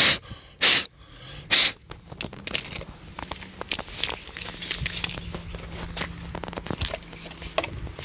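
Three short, loud puffs in the first two seconds, then light clicking, scraping and crinkling as the plastic dust container and pleated filter of a cordless stick vacuum are handled and the dirt is shaken out into a bin.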